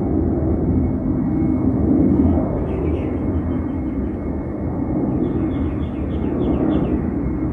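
Qantas Airbus A330-300 jet taking off, a steady low rumble of jet engine noise. Two short runs of bird chirps come through over it, about three seconds in and again around six seconds.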